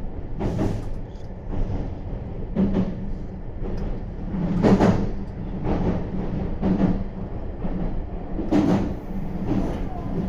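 Meitetsu 3500 series electric train running, heard from inside the front car: a steady motor hum with a thud about once a second as the wheels cross rail joints.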